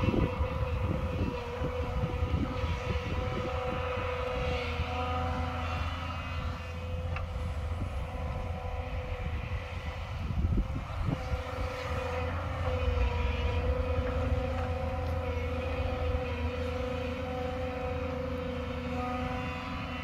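JCB tracked excavator's diesel engine running in a steady drone while it works the hillside, with a couple of faint knocks.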